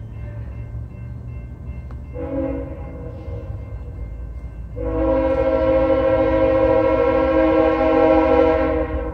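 Diesel locomotive's multi-chime air horn sounding for a grade crossing: a short blast about two seconds in, then a long, louder blast lasting about four seconds, over a steady low rumble.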